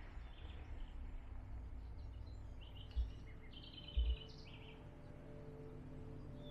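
Quiet room with a steady low hum and faint bird chirps, plus two soft low thumps about three and four seconds in.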